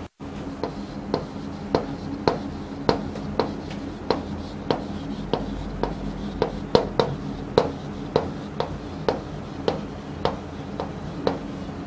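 Chalk writing on a chalkboard: a steady run of short sharp taps and scrapes, about two a second, as words are written out.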